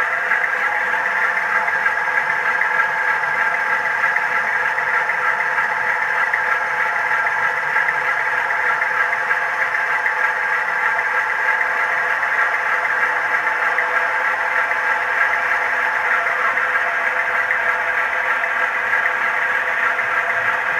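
Sound decoder in an OO gauge model Class 47 locomotive playing its Sulzer diesel engine idling steadily, heard through the model's small speaker.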